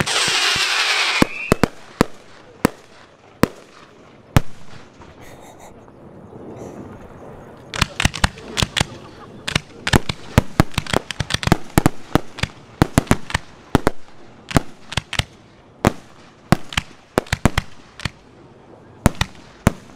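Professional aerial fireworks shells launching and bursting. A loud rushing hiss for about the first second, then sharp bangs, sparse at first and coming thick and fast from about eight seconds in.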